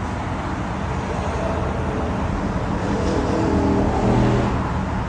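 Steady low rumble and hiss inside a halted passenger train car, with a hum that swells from about three seconds in.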